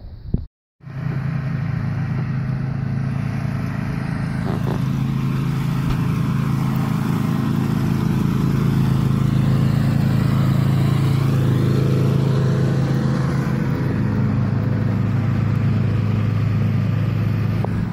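A motor vehicle engine running steadily at a low idle, with a deep, even hum that swells a little in the middle.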